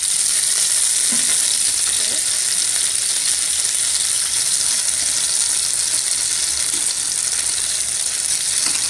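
Chicken strips sizzling steadily as they shallow-fry in ghee over medium heat, with a slotted spatula scraping the pan as the pieces are turned.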